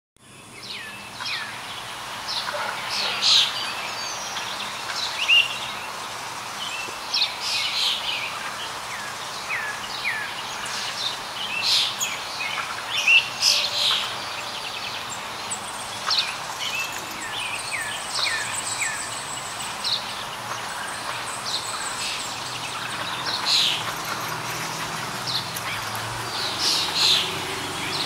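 Oriental magpie robin calling: a long run of short chirps and brief whistled notes, some sliding downward, over a steady background hiss.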